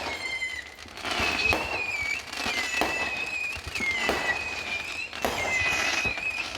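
Fireworks going off: a run of sharp bangs, roughly one every second and a bit, each joined by a high wavering whistle that slides slightly down.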